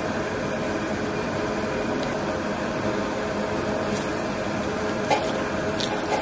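Steady restaurant room noise: an even hiss with a low mechanical hum, like ventilation fans, and a few faint clicks.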